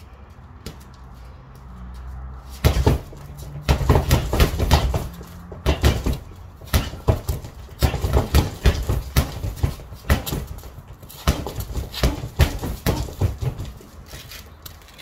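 Boxing gloves hitting an Everlast Powercore freestanding punching bag in quick combinations. The slaps and thuds begin about two and a half seconds in and come in runs of several blows, with short pauses between them.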